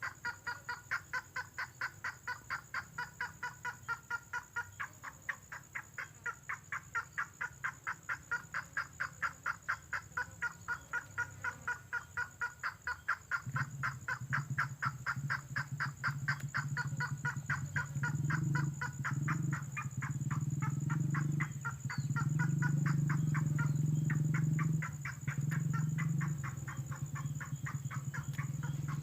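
Lure-call recording of the red tengkoah bird: a rapid, even series of short piping notes, about four a second. About halfway through, a low steady hum with a few brief breaks comes in beneath the calls.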